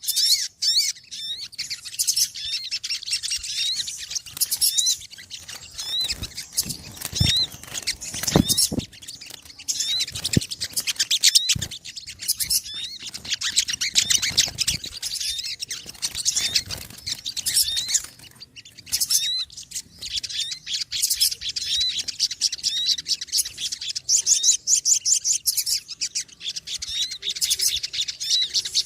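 A flock of small birds chirping noisily in rapid, overlapping, high-pitched twitters. There are a few brief low knocks about a quarter to two-fifths of the way in.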